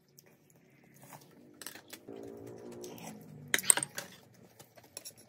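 Metal spoon and ladle clinking against the stew pot and dishes, with the loudest knocks about three and a half seconds in. A low steady hum runs for about a second and a half before them.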